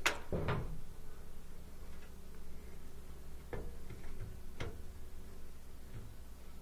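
A few sparse clicks and light knocks from hands working inside a sheet-metal air handler cabinet, the sharpest right at the start, over a low steady hum.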